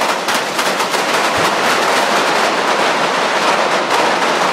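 A fast, loud string of firecrackers going off: the traca that sets off the burning of a Fallas monument. The separate bangs run together into an almost continuous crackle.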